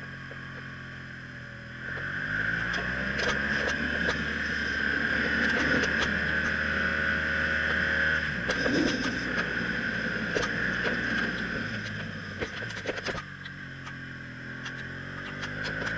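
BMW R1200CL motorcycle's boxer-twin engine running under way, with a steady hiss over it. The revs climb about two seconds in, ease off in the middle and fall lower near the end, then pick up again just before the end.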